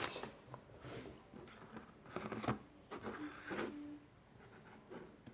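Faint handling noises from pouring glue into a slime bowl: a few soft knocks and short rustles spread out, with a brief low squeak or hum about three seconds in.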